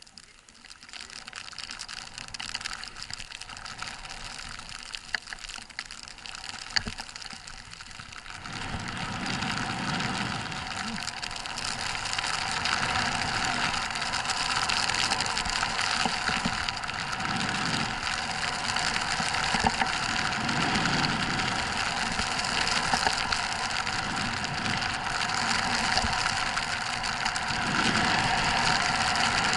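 Skis running through deep powder snow, with wind rushing over the action camera's microphone during a downhill run. The rushing noise builds from the start and grows louder about eight seconds in, with a few sharp clicks along the way.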